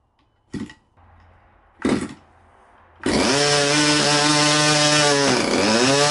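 Stinger 15cc two-stroke gasoline RC airplane engine being hand-started: short bursts as the propeller is flipped, then it catches about three seconds in and runs steadily, its speed dipping briefly near the end before picking up again. This is the new engine's first run, after the choke-and-prime starting procedure.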